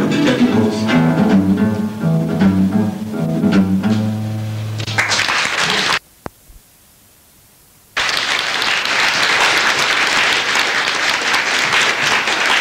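Acoustic guitars play the end of a song, closing on a held chord. Audience applause starts about five seconds in, drops out abruptly for about two seconds, then resumes and continues steadily.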